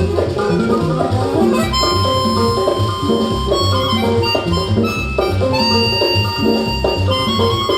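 Loud dance music with a steady beat and bass line; about two seconds in, high held notes come in over it.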